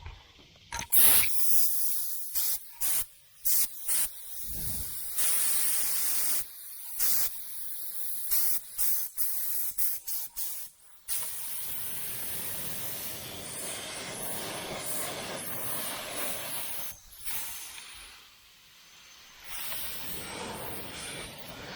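Compressed-air paint spray gun spraying paint. The hiss comes in short on-off bursts, then runs in longer steady passes, with a brief lull near the end.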